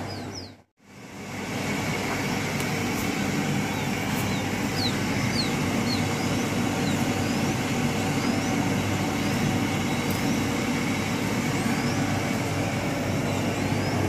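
Quail chicks peeping: short, thin, high chirps, each a quick falling or rising glide, about one a second. They sit over a steady low background hum, with a brief dropout to silence near the start.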